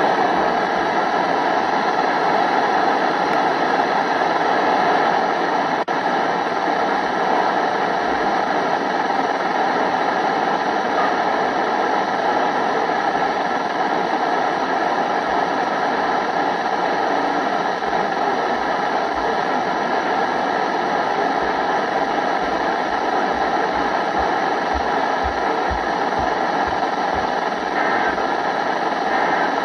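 A steady, loud rushing noise with faint steady tones running through it, unchanging throughout.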